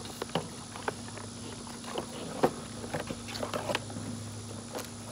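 Cardboard box being opened by hand, its flaps folded back: scattered light crackles, scrapes and taps, the loudest about two and a half seconds in.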